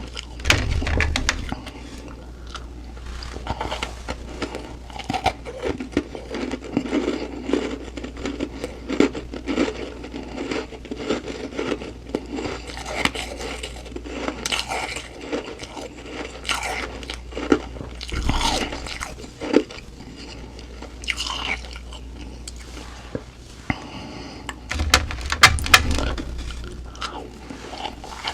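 Close-up crunching and chewing of humidifier frost, a soft, powdery ice, with irregular crackly crunches throughout. Heavier bites come about a second in and again near the end.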